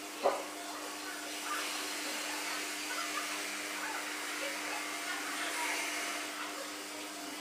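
Steady background hiss with a low hum, over which kittens eat from a metal plate, with faint small eating sounds and one sharp knock just after the start.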